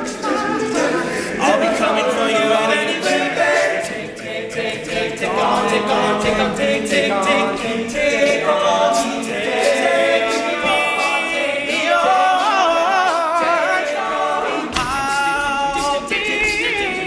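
Male a cappella group singing in layered harmony, with a vocal-percussion beat of sharp clicks and hisses under the chords.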